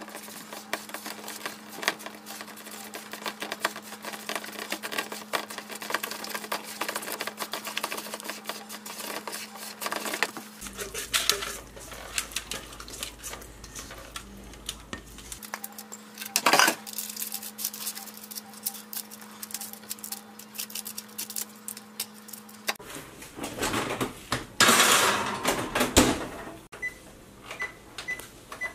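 A spatula stirring and scraping batter in a stainless steel mixing bowl, with clinks and knocks of kitchen utensils over a steady low hum. Near the end, a few short beeps come from a GE electric range's oven keypad as it is set.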